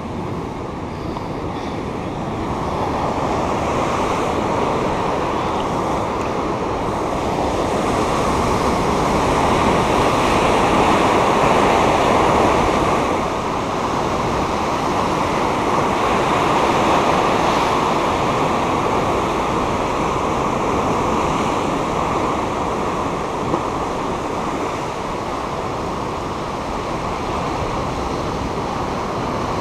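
Rough surf breaking and washing over a rocky shoreline: a continuous rush of water that swells louder around ten seconds in and again around seventeen seconds in.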